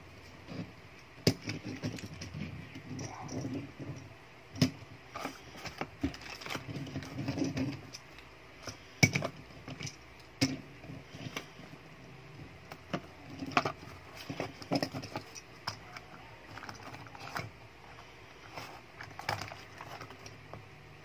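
Handling noises from a small die-cast toy refuse truck being turned over in the hands and set down on a desk: irregular sharp clicks and taps over a soft rustle, the loudest clicks about five and nine seconds in.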